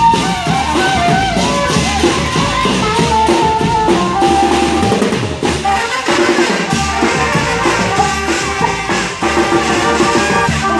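Music with a drum kit keeping a steady beat under a gliding melody.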